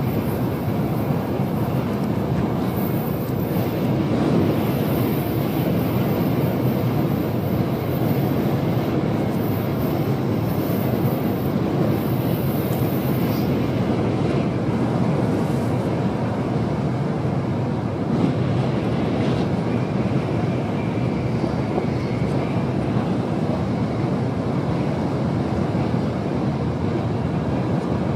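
Tokaido Shinkansen running at speed, heard from inside the passenger cabin: a steady rumbling roar of wheels and air, with a high hiss that comes and goes during the first half.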